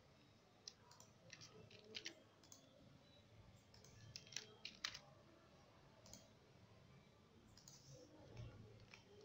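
Faint, irregular clicks of a computer mouse and keyboard, scattered singly and in small clusters, over low room hiss.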